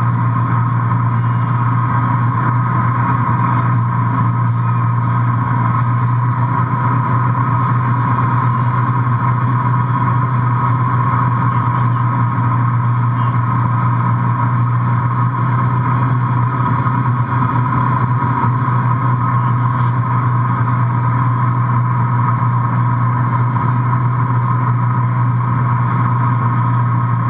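The inboard engine of an MB Sports B52 wakesurf boat running at a constant speed, an unchanging drone, mixed with the rush of the wake water behind the stern.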